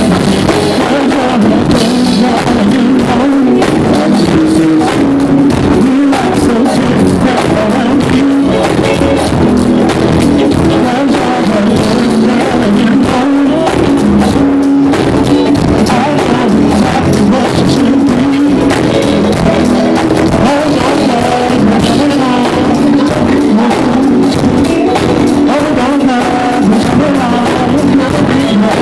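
A live band playing loudly: drum kit, bass guitar and singing voices together, with a steady drum beat.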